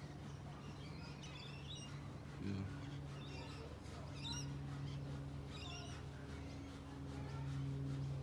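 Scattered short, high bird chirps, about five brief calls, over a steady low hum.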